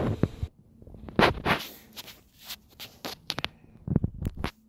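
Irregular knocks and scuffs, about a dozen short hits in a few seconds, loudest about a second in and again near the end.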